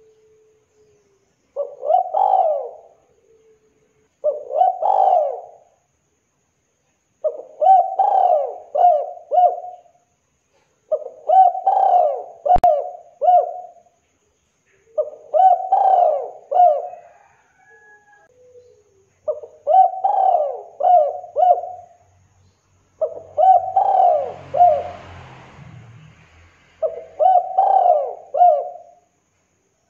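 Spotted dove (tekukur) cooing: repeated phrases of several low, mellow coos, a new phrase every three to four seconds. A single sharp click comes about halfway through, and a brief rustle comes near the end.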